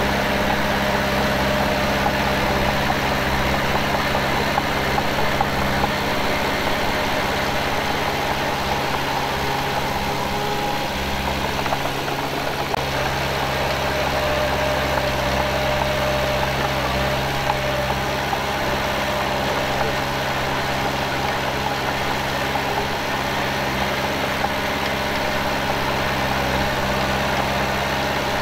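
Diesel engine of heavy earthmoving machinery running steadily at a constant speed.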